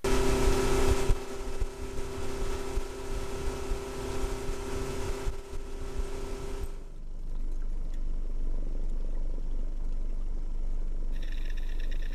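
Boat motor running steadily. For about the first seven seconds it is heard through the water as a steady whine over a low throb. After that it becomes a steady low engine drone, and a higher whine joins near the end.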